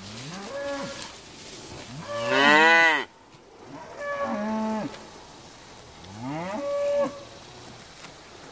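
Cattle mooing: four calls about two seconds apart, each rising in pitch as it starts. The second call is the loudest and cuts off sharply.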